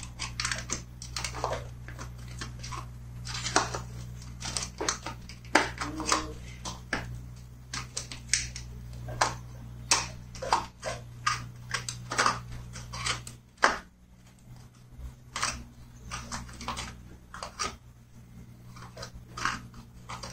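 Irregular clicks, taps and rattles of hands working wiring harness and connectors in a car's engine bay, several a second. They sit over a steady low hum that stops about two-thirds of the way through.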